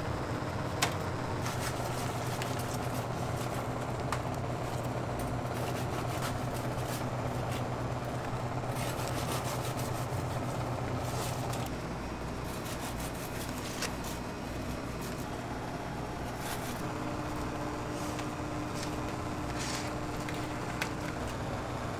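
Steady low hum of kitchen machinery with scattered light clicks and taps of work; the hum drops a little about halfway through.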